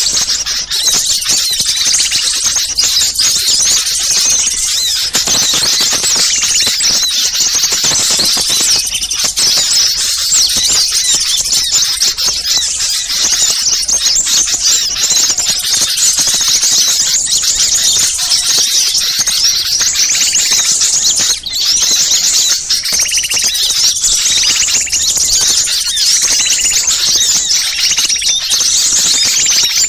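Dense chorus of many small songbirds chattering and calling at once: a bird-lure recording of agitated small birds, played to draw wild birds in. The high, busy chatter goes on without a break.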